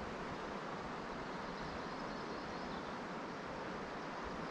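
Steady rushing of the Lostine River, an even hiss of flowing water with no breaks.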